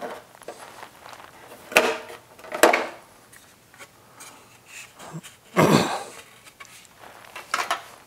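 Hand work at a motorcycle's front brake caliper: the caliper cover and tools knocking and clinking as the cover comes off. A handful of separate knocks and clinks, the loudest a little past halfway.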